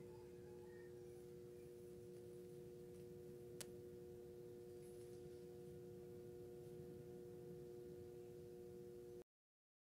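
Faint steady hum of two held tones, with a single short click about three and a half seconds in; the sound cuts off abruptly shortly before the end.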